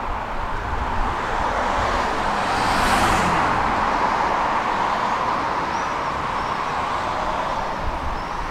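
City street traffic noise, with a car passing close by about three seconds in, its tyre noise swelling and then fading into the steady traffic hum.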